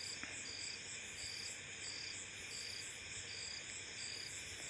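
Insects chirping steadily in the background: a high pulsed note repeating about three times every two seconds, with a faster, higher trill above it, over a faint steady background noise.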